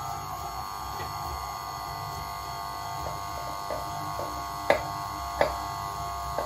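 KitchenAid stand mixer's electric motor running steadily, beating egg and oil into the dry muffin ingredients. Two sharp clinks stand out about two-thirds of the way through.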